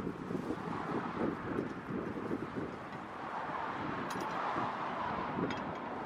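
Wind buffeting the microphone outdoors: an uneven, gusty rumble over a steady hiss, with a couple of faint clicks about four and five and a half seconds in.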